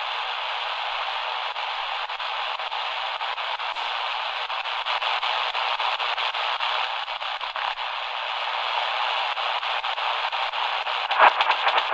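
Shortwave static hissing and crackling from the XHDATA D-328 pocket radio's small speaker as it is tuned up through its 6.8–7.6 MHz band. Louder bursts about 11 seconds in as a signal is tuned across.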